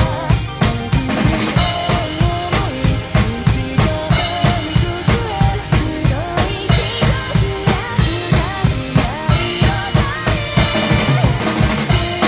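Drum kit played along to a fast rock song's backing track: quick, steady kick and snare strokes with cymbals over a bending melody line.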